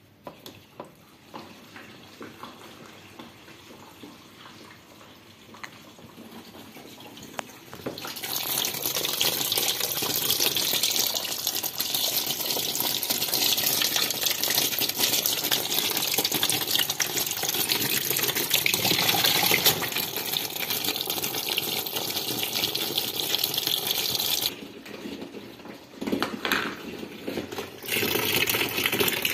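Cold tap water pouring from the inlet into the wash tub of an Artel TG-100 FP top-loading washing machine as it fills. The steady gush starts about eight seconds in, drops away for a few seconds near the end, then comes back.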